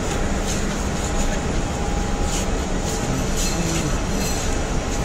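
Steady rumbling ambient noise of an airport terminal forecourt, traffic and crowd blended together, with a few faint short ticks near the middle.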